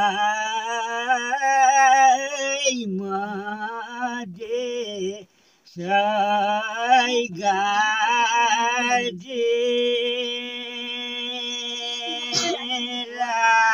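An elderly man singing a village folk song unaccompanied, in long wavering held notes with a few short breaths between phrases, ending on a long steady note that bends just before it stops.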